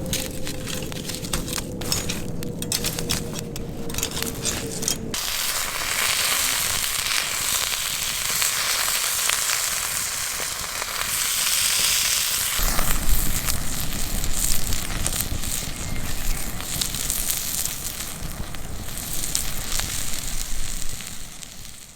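Wood fire crackling and hissing, with sharp pops over a steady hiss; the sound changes abruptly about five seconds in and again about halfway through, as between separate takes.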